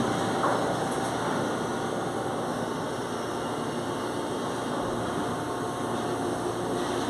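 Steady machinery noise, an even drone that does not change.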